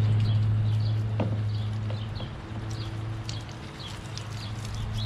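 Water jet from a spray wand spattering against the underside of a push mower deck, with irregular patter over a steady low hum.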